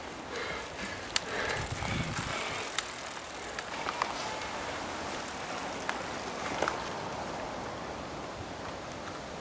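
Mountain bikes ridden over a leaf-covered dirt forest trail: tyre noise and a low rumble as one rider passes close about two seconds in, with several sharp clicks and rattles from the bikes over a steady hiss.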